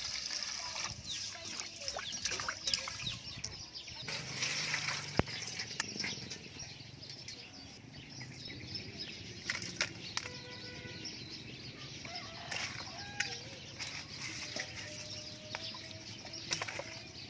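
A stream of water pouring into a steel bowl of rice for the first few seconds. Then chickens and birds calling in the background, with scattered sharp clicks and knocks.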